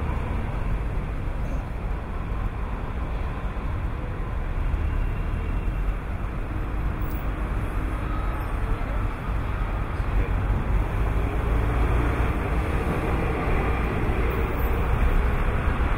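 Steady outdoor city ambience: a continuous low rumble of traffic and engines with an even wash of noise over it.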